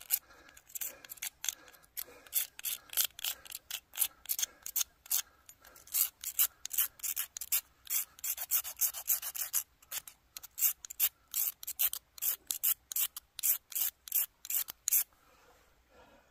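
Ferro rod scraped hard with a steel striker, a long run of quick rasping strokes, about two to four a second, with a short pause partway through; the strokes stop near the end.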